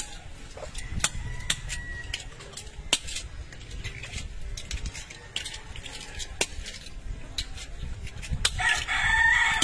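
Scallop shells clicking and clinking as they are handled and opened by hand on a table heaped with them. A rooster crows near the end.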